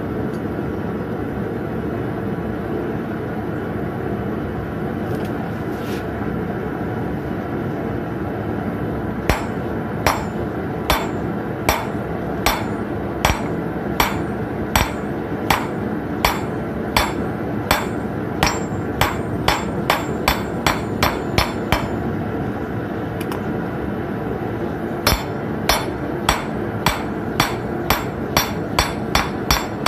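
Hand hammer striking a red-hot 7-inch common nail on a steel anvil, flattening it into a letter-opener blade. The blows start about a third of the way in at one to two a second, quicken, stop for a few seconds, then resume near the end. A steady roar runs underneath.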